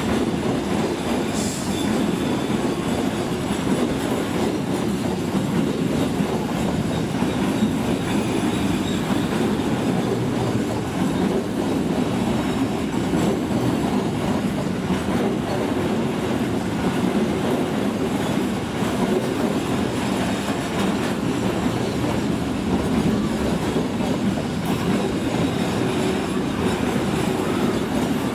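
Long container freight train rolling past at close range, a steady rumble of wheels on the rails with clatter over the rail joints.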